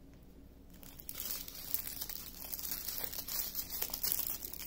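Small clear plastic bags of diamond painting drills crinkling as they are picked up and sorted by hand, starting about a second in.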